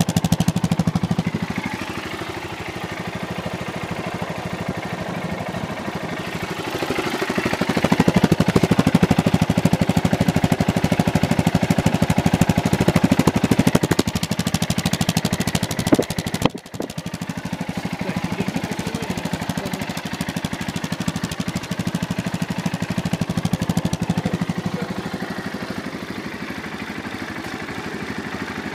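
Yamaha MT-03 motorcycle engine running through its exhaust while the bike stands still: idling, and revved up and held higher for stretches. The sound dips sharply for a moment just past halfway, then settles back to a steady idle.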